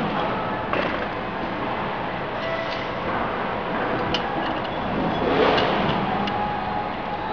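Steady workshop noise with a few light, sharp metallic clicks and taps from tools on the peeling machine's frame while a roller is being changed.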